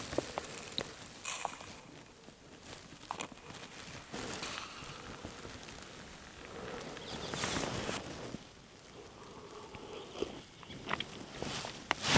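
Small clicks and soft rustling swishes of someone handling things close to the microphone, against a still, quiet outdoor background.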